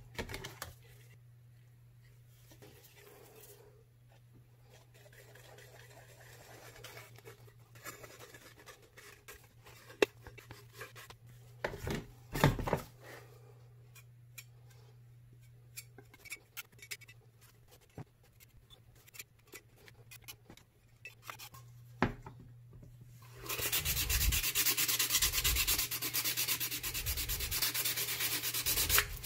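Quiet handling and scraping as body filler is mixed and spread with a putty knife, with a few sharp knocks in the middle. About two-thirds of the way in, a fast, steady hand-sanding rub starts on the filled metal body of the gun oiler and runs on loudly.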